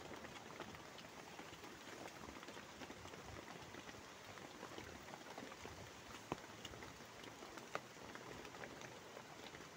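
Heavy rain falling steadily on a tarpaulin shelter overhead, with a few sharp clicks about six and eight seconds in.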